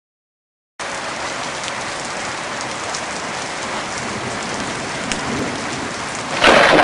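Steady rain-like hiss that starts just under a second in, with a louder rush swelling near the end.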